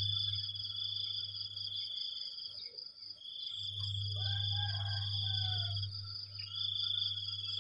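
A morning chorus of crickets and cicadas: a high trill repeats in long phrases of two to three seconds, each broken by a short pause, over a steady higher ringing tone. A low hum rises and falls with it, and a faint rising-and-falling call sounds about four to six seconds in.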